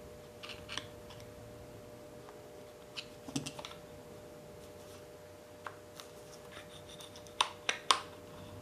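Scattered small metal clicks and taps as a screwdriver and gloved hands work on the air motor of a dual-action sander, with three sharper clicks close together near the end.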